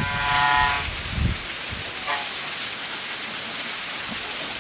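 Waterfall: a steady rush of falling water. A short pitched sound at the start and a low thump about a second in sit over it.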